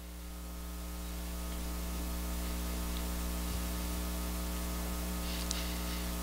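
Electrical mains hum with a steady hiss, rising over the first couple of seconds and then holding steady; a few faint ticks near the end.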